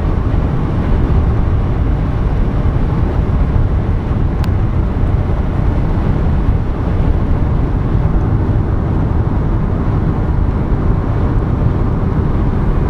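Steady low road noise of a car driving at highway speed, heard from inside the cabin.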